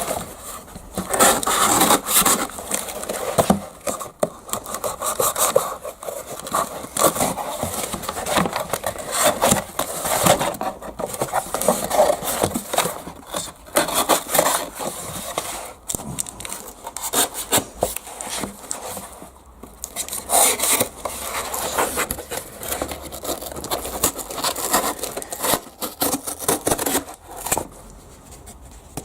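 Kershaw Leek 1660 CBBW knife blade (CPM D2 edge) being drawn through material in a cutting test: a run of irregular rasping, scraping cuts broken by brief pauses, from a blade the owner says doesn't even cut right.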